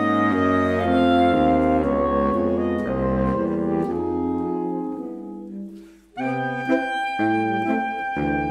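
Saxophone quartet (soprano, alto, tenor and baritone saxophones) playing a jazzy tune together. The phrase tails off to a short pause about six seconds in, then the four saxophones come back in with a new phrase.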